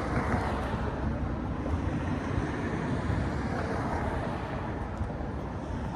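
Steady outdoor rumble with a hiss over it and no separate bangs.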